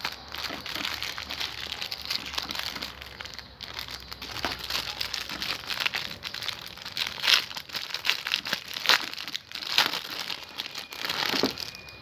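Clear plastic packaging bags crinkling as they are handled and pulled open by hand, an irregular crackle with a few sharper, louder crackles past the middle.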